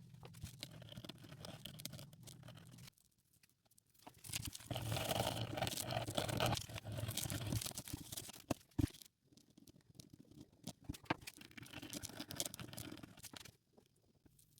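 Scrubbing and scratching on a small bronze coin as it is cleaned, heard in several separate stretches that cut off abruptly, with one sharp click near the middle.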